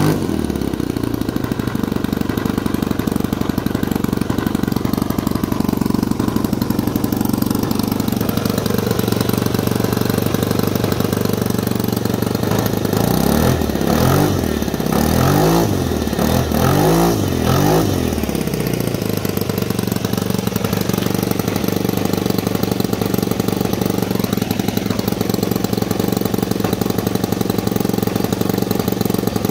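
Saito 125GK four-stroke model airplane engine running steadily. It is blipped up in revs and back down about three times around the middle. It is swinging a propeller that the owner says is too large for it.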